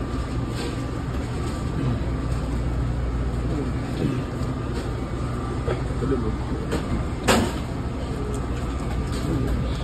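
Steady low hum of fast-food kitchen equipment with a faint steady whine above it, broken by occasional clatter and one sharp knock about seven seconds in.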